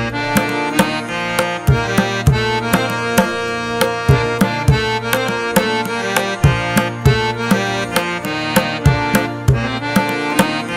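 Background music: a steady rhythm of drum strikes over sustained melodic instrumental tones.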